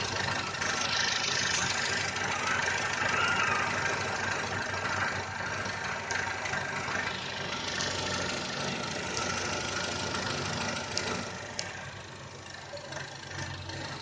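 Wuling Confero Lux+ engine running steadily at idle, with a strange noise that the owner likens to crickets at night and cannot locate. Two short clicks come about eleven seconds in, after which it gets a little quieter.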